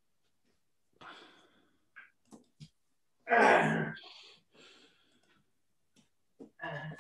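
A person's loud sigh about three seconds in, among a few soft knocks and rustles.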